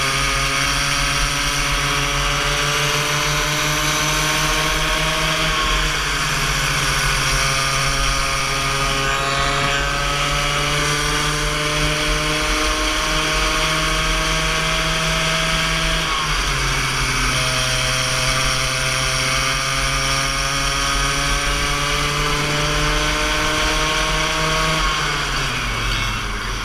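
Go-kart engine at full throttle heard from on board the kart, its pitch climbing slowly along each straight and dropping briefly four times as the throttle is lifted for corners, falling away near the end.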